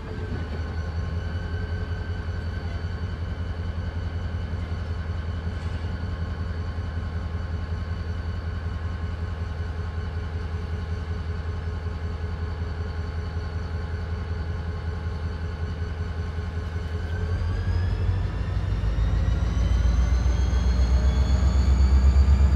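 EMD SD40 diesel locomotive's turbocharged 16-cylinder two-stroke 645 engine running steadily, then revving up about 17 seconds in, rising in pitch and getting louder as the throttle is opened.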